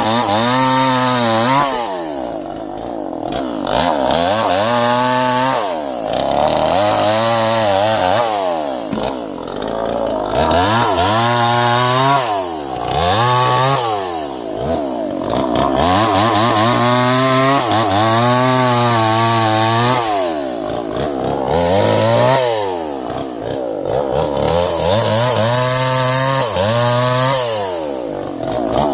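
Two-stroke chainsaw cutting through small sengon stems one after another: the engine pitch sags as the chain bites, then revs back up when it cuts through. This repeats about every two to three seconds.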